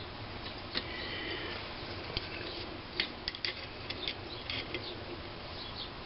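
Light metallic clicks and ticks, irregular and bunched together about halfway through, from a wrench working the set screw on the governor yoke of a McCormick-Deering Type M flywheel engine as it is tightened.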